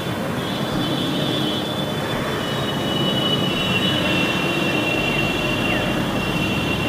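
Steady rumbling noise with several high, drawn-out squealing tones that slide slightly lower over a few seconds.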